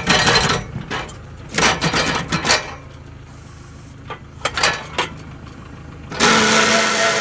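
Kubota L-series tractor engine running while the attachment is shaken on the loader's quick-attach plate. Three bursts of metal clanking and rattling come through, then a louder scraping rush for about a second near the end, as the unseated locking pin works into place.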